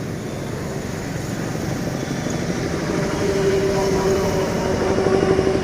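A motor vehicle engine running with a fast, even pulse, and a steady hum joining in about three seconds in.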